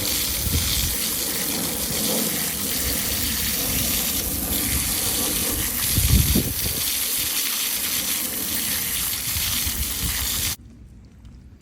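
Pressure washer spraying a jet of water onto dishwasher parts to rinse out the grime, a steady loud hiss of spray that cuts off suddenly near the end.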